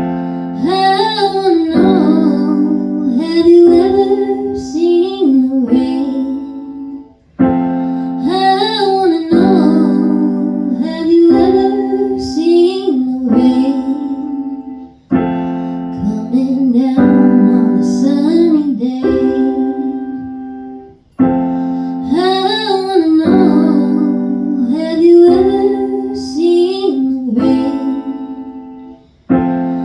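A song sung to keyboard accompaniment: a voice singing phrases over held piano chords, with brief breaks between lines.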